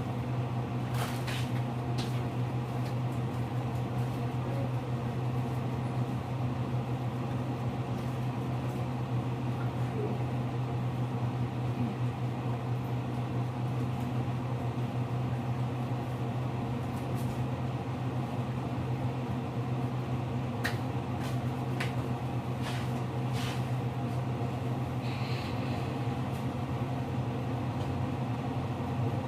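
Steady low hum of a running fan or appliance motor, unchanging throughout, with a few faint clicks.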